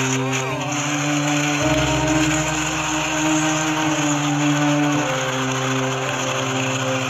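Steady rushing noise of tsunami floodwater carrying debris, under slow, held background music chords that change pitch every few seconds.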